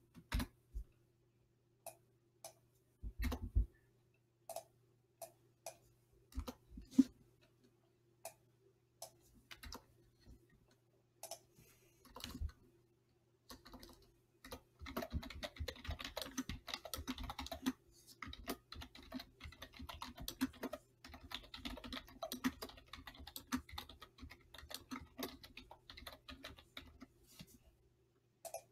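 Typing on a computer keyboard: scattered single clicks for the first half, then a run of fast, steady typing from about halfway in, broken by a couple of short pauses. A faint steady hum runs underneath.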